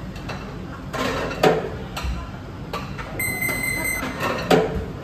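Restaurant ordering tablet gives a steady high electronic beep lasting just under a second, about three seconds in, as the order is confirmed. Two sharp knocks, about a second and a half in and near the end, stand out above a steady background of restaurant clatter.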